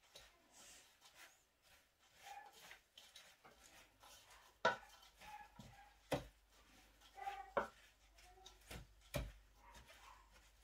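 Wooden spoon stirring chopped spinach in a stainless steel bowl: soft rustling and scraping, with a few sharper knocks of the spoon against the bowl in the second half.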